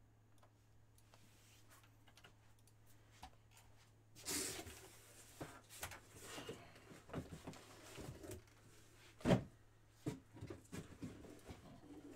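Scattered clicks and knocks of hands handling things, with a brief rustle about four seconds in and a single heavy thump just past nine seconds, over a faint steady low hum.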